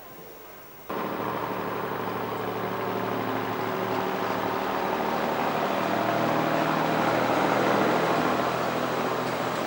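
Diesel railcar approaching and passing, its engine running with a steady drone over wheel and rail noise, growing louder as it nears. It begins abruptly about a second in, after faint room tone.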